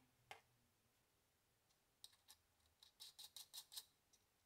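Light clicks from small brass battery-terminal hardware being handled by hand: one click about a third of a second in, then a quick run of about eight clicks over the next two seconds, starting about halfway through.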